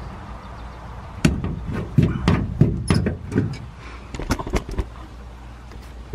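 Hand tool working a metal bracket loose on an RV's underside: an irregular run of sharp metallic clicks and clanks from about a second in until about five seconds in.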